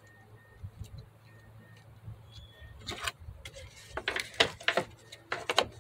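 Plastic fuse box cover of a 2010 Mazda 6's engine-bay fuse box being fitted back on by hand. A run of sharp plastic clicks and knocks starts about three seconds in and gets busier toward the end as the cover is snapped into place.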